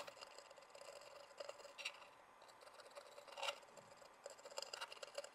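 Near silence with a few faint, short clicks, the clearest about two seconds in and again about three and a half seconds in.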